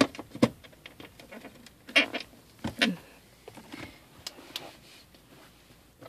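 Plastic dash trim panel of a Toyota 4Runner knocking and clicking as it is pressed and snapped into place below the climate control. There are a few sharp knocks in the first three seconds, then lighter taps.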